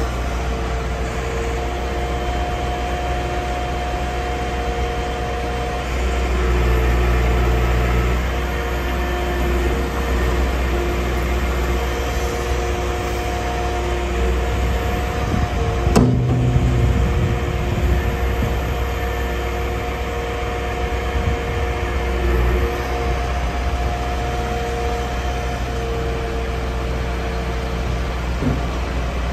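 Liebherr R936 crawler excavator's diesel engine running with a steady hydraulic whine as the boom and arm are moved. The engine note rises briefly under load about a quarter of the way in, and there is a single sharp knock about halfway through.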